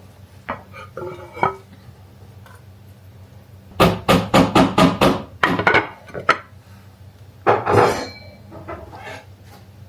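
Kitchen clatter of metal cookware and utensils: a few scattered clinks, then a quick run of about eight sharp knocks in the middle, and a short scraping clatter a little later.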